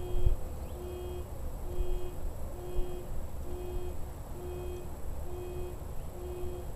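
Electronic beeper sounding a steady low beep about once a second, each beep about half a second long, over a low rumble.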